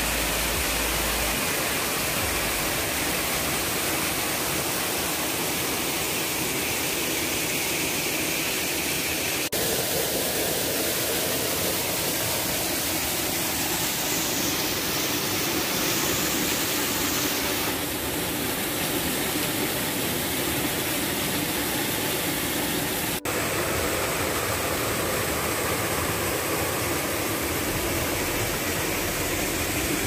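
Waterfall pouring over rock ledges and splashing into a shallow pool: a steady, loud rush of water. Two brief dips come about ten and twenty-three seconds in.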